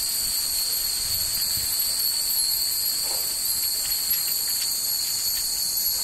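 Japanese wind chimes (fūrin) tinkling lightly in the breeze, a few faint strikes in the second half, over a steady high-pitched hiss.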